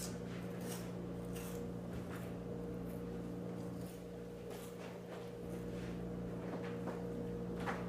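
Faint, irregular crackles and clicks of someone chewing toast, over a steady low hum.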